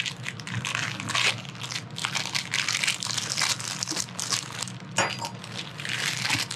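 Clear plastic bag wrapped around an MRE entrée pouch crinkling and rustling irregularly as it is slit with a knife and pulled open by hand.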